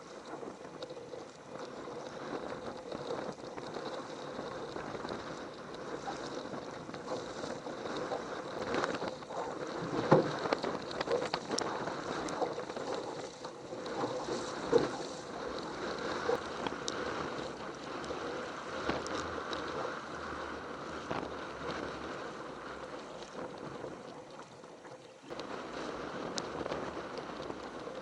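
Water sloshing and splashing around a kayak on choppy sea, with wind buffeting the microphone. A few sharper splashes or knocks stand out around ten and fifteen seconds in, and the sound jumps louder suddenly near the end.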